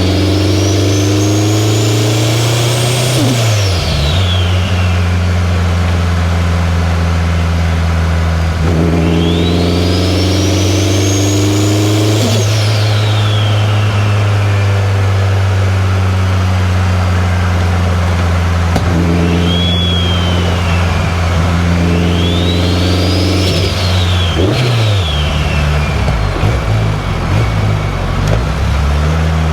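2003 Subaru WRX's turbocharged 2.0-litre flat-four engine pulling under throttle, with a high whine that climbs for a few seconds and drops away when the throttle lifts, three times. The engine note changes pitch about four seconds in and again near the end.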